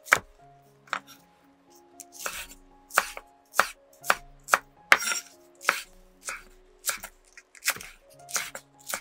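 Chef's knife slicing through a spring onion stalk and knocking on a wooden cutting board: a steady series of crisp cuts, a little under two a second.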